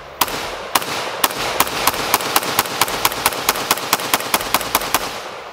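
Q Honey Badger pistol in .300 Blackout, fitted with a Cherry Bomb muzzle device, firing a rapid string of about twenty shots. Two spaced shots come first, then fast fire at about six shots a second, stopping about four and a half seconds in.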